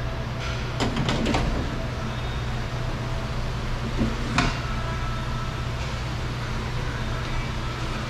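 Car door glass knocking and clicking against the inside of a rear door as it is worked up and lifted out. There is a quick cluster of clicks about a second in and one sharp knock about four seconds in, over a steady low hum.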